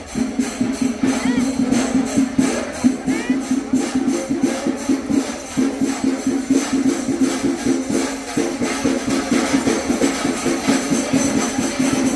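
Chenda melam: rapid, dense drumming with ringing hand cymbals and a steady held low note underneath.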